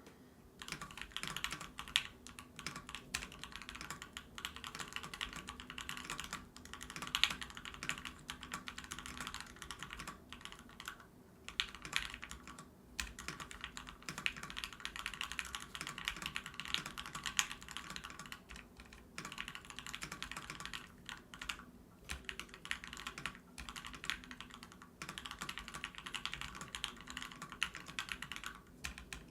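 Fast, continuous typing on a Discipline V2 mechanical keyboard fitted with Banana Split linear switches: a dense run of keystroke clacks broken by a few short pauses.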